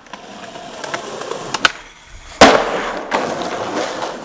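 Skateboard ollie down a nine-stair set. The wheels roll on concrete, the tail pops sharply about one and a half seconds in, and after a short quiet moment in the air a loud landing slap comes about two and a half seconds in. The wheels then roll away.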